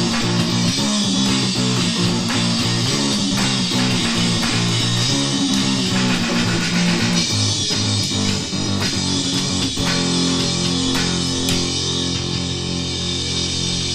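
Rock music with guitar and bass guitar playing; from about ten seconds in the bass settles on one held low note.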